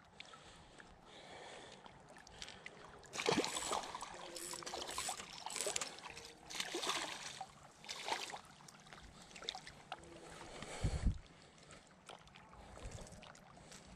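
Water splashing in irregular bursts as a hooked ladyfish thrashes at the surface and a hand reaches in to grab it, with a dull knock about eleven seconds in.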